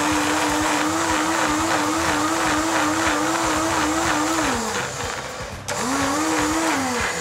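Countertop blender running, pureeing a vegetable sauce thinned with water. The motor runs steadily, winds down about four and a half seconds in, then is switched on again briefly near the end and spins down.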